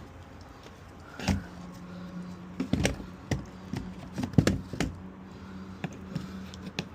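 Metal hand tool knocking and scraping on a copper water pipe in short irregular strokes, working off stuck-on solder. A steady low hum runs beneath from about a second in until near the end.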